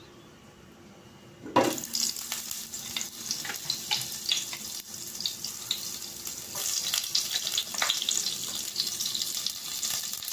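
Butter sizzling and crackling in hot olive oil in a frying pan, starting suddenly about a second and a half in. The sizzle grows louder about two-thirds through, with a piece of marinated pork steak frying in the pan by the end.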